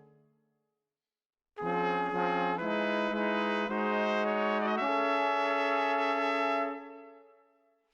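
Background music: a held chord fades out, then after a short gap a phrase of sustained chords plays and fades away near the end.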